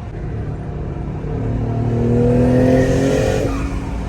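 Twin-turbocharged Infiniti G35's V6 accelerating hard under boost, its pitch rising steadily for about two seconds, then falling away sharply as the throttle closes about three and a half seconds in.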